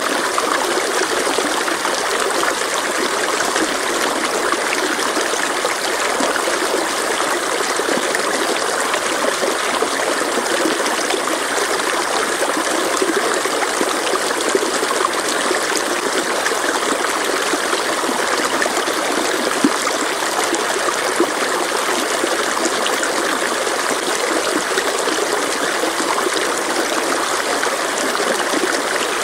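Mountain stream flowing over rocks: a steady, even rush of running water with light trickling.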